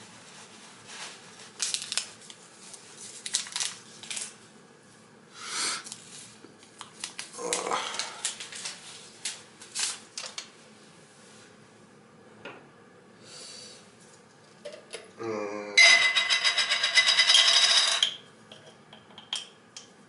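Ceramic mug, spoon and a small jar being handled on a kitchen counter: scattered clicks and knocks. About three-quarters of the way in comes a loud burst of rapid clinking with a ringing tone, lasting about three seconds.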